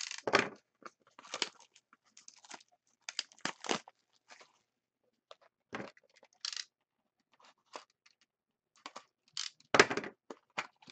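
A sealed box of hockey cards being unwrapped: its wrapper is cut and torn off with crinkling, tearing and handling knocks in short, separate bursts. The loudest burst comes near the end.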